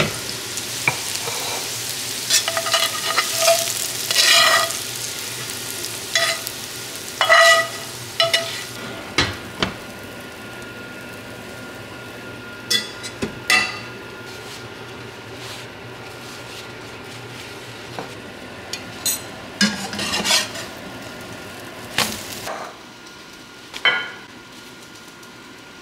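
Diced potatoes sizzling in a frying pan while a utensil scrapes and stirs them. After about nine seconds the sizzling drops away, leaving scattered clinks and knocks.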